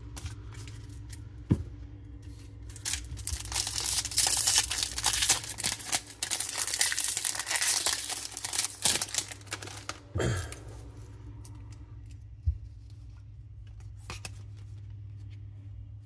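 Foil wrapper of a Topps baseball card pack being torn open and crinkled by hand, a dense crackling tear lasting about seven seconds from a couple of seconds in, followed by quieter handling of the cards.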